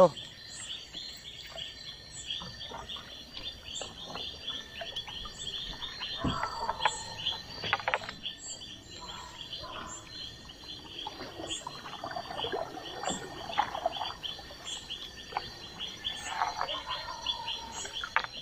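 Night chorus of frogs and insects: a dense, rapid high pulsing trill over a steady high drone, with scattered lower calls. Two sharp knocks come about six and eight seconds in.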